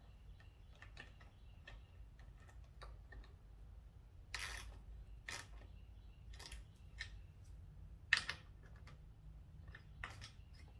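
Faint, irregular clicks and taps of hand tools and metal parts being handled while bolts are tightened down, with a few sharper knocks about four and a half, five and a half and eight seconds in.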